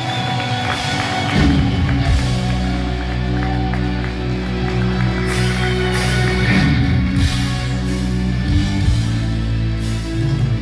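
Live rock band playing loudly: a held note rings out, then the full band comes in with bass and drums about a second and a half in, with cymbal crashes over steady driving chords.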